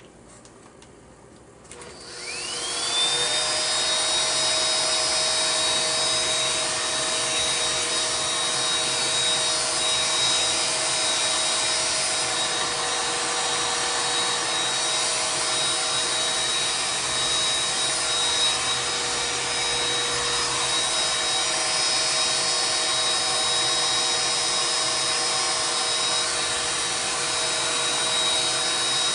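Hair dryer switched on about two seconds in: its motor whine rises quickly, then it runs steadily with a high whine over a rush of air.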